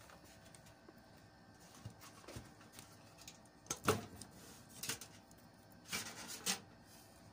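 Power-supply cables being handled and tied down inside a desktop computer case: a handful of light clicks and rustles, the loudest about four seconds in.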